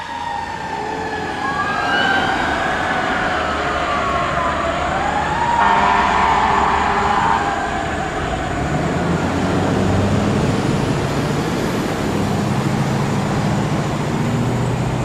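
Fire engine siren wailing, its pitch sweeping down and up, until it dies out about halfway through. After that, the steady noise of passing car traffic takes over.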